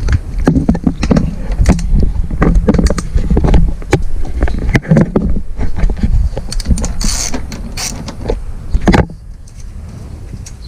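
Irregular knocks and clicks of a wrench and handling as a motorcycle seat held on by 12 mm bolts is unbolted and lifted off, ending in a sharp knock about nine seconds in.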